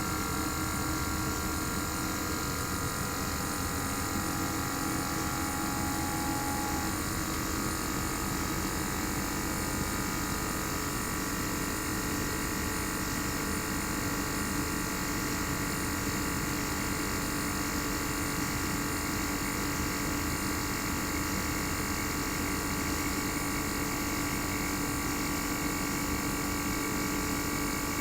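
Inverter-driven single-rotary compressor of a Panasonic CU-227CF air-conditioner outdoor unit running, heard raw from the open top of the unit: a steady hum with several whining tones, whose pitch pattern shifts once about seven seconds in as the compressor speed changes.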